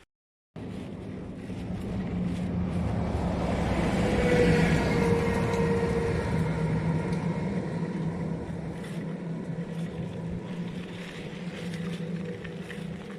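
Engine running at a steady speed, getting louder up to about four seconds in and then slowly fading.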